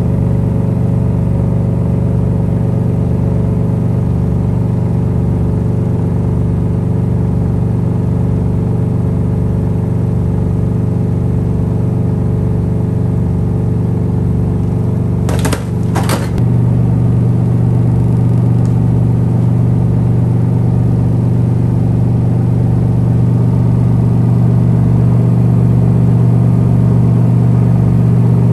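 Electrolux EWT1567VIW top-loading washing machine spinning, its drum and motor giving a loud, steady hum with a faint low beat about once a second. Two sharp knocks come about halfway, after which the hum is a little louder.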